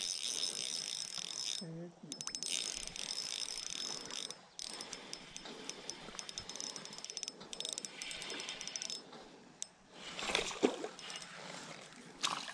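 Spinning reel being cranked to bring in a hooked fish: the reel's gears whir and tick steadily, stopping briefly a few times as the cranking pauses.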